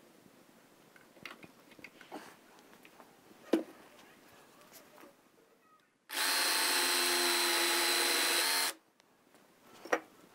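Worx jigsaw running and cutting through a wooden cleat in one steady burst of about two and a half seconds, starting about six seconds in and stopping abruptly. Before it there are light clicks and a sharp knock, and another knock comes near the end.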